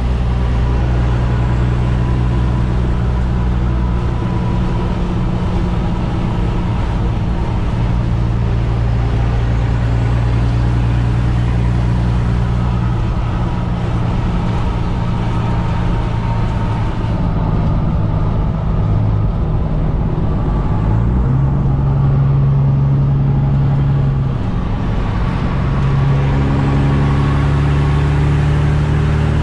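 Kenworth T800's straight-piped Caterpillar C15 diesel running down the road, heard from inside the cab over road noise. The engine note shifts in pitch about two-thirds of the way through and again a few seconds later, then climbs near the end.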